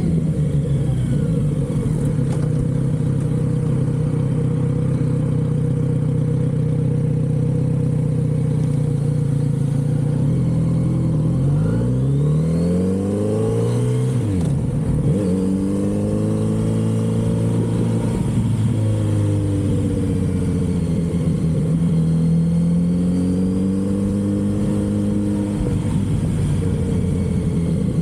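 Kawasaki Z900RS inline-four engine through its stock exhaust, heard from the bike while riding. It runs steadily for about ten seconds, then the revs climb sharply, drop suddenly at a gear change or throttle lift, climb again and fall back, then settle into a steady, slightly wavering cruise.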